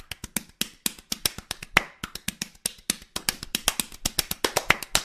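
Open hands slapping a shirtless man's bare belly and chest like a drum kit: a quick rhythmic run of sharp skin slaps, busier in the second half.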